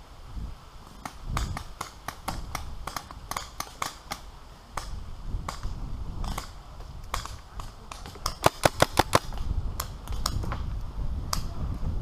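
Magfed paintball markers firing: scattered sharp pops throughout, with a quick string of about six loud shots a little after the middle.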